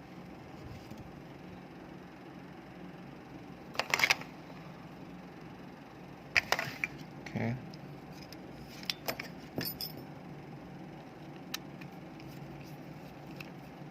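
Small plastic parts of an air-conditioner remote control being handled while it is taken apart, giving scattered sharp clicks and cracks. The loudest come about 4 s in and again about 6 to 10 s in.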